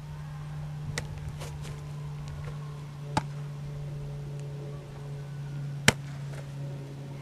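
Sharp smacks of a football slapping into hands, three times, the last and loudest near the end, over a steady low hum.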